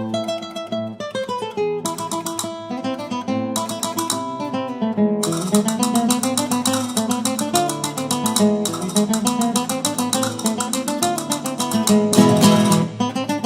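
Background music: fast plucked and strummed acoustic guitar in a flamenco style.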